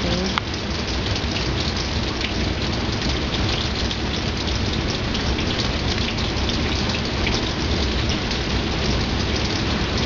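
Heavy rain pouring down steadily, a dense patter of drops hitting surfaces.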